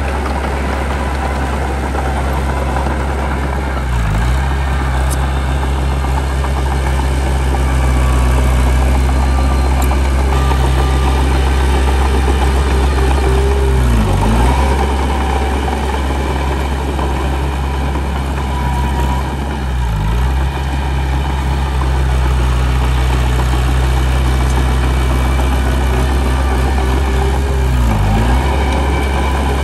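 Heavy diesel engine of earthmoving machinery running steadily, a low drone. Four times the engine speed dips briefly and comes back up.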